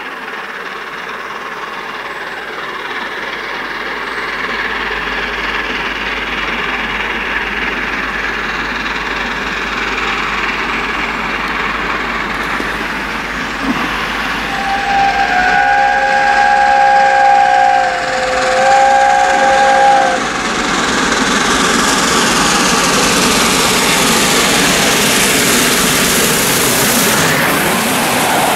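Peppercorn A1 Pacific steam locomotive 60163 Tornado approaching with a passenger train, its running noise and exhaust growing steadily louder. About halfway through, its whistle sounds two long blasts, the first about three seconds and the second about two. Near the end the locomotive and coaches pass close by in a loud rush.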